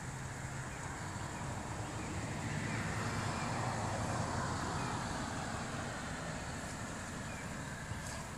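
A vehicle passing on a nearby road: its noise swells to a peak about halfway through and then fades, over a steady low hum.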